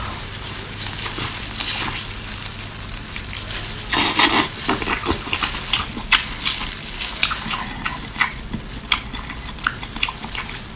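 Close-up wet chewing and squelching of whole spicy octopus being bitten and eaten, with many small sticky clicks and a louder burst about four seconds in.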